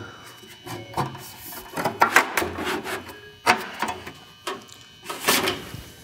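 Aluminum fascia panel being pushed and slid into place against the soffit: irregular scrapes and rubs of thin metal, with a few louder knocks.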